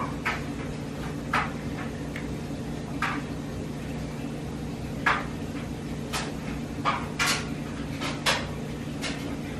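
Light knocks and clicks of household things being handled and set down, about ten of them at irregular intervals, over a steady low hum.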